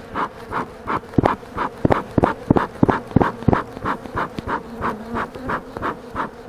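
Honey bees humming steadily around an opened hive. A rhythmic puffing about three times a second runs throughout, and a quick run of about seven sharp knocks comes in the first half.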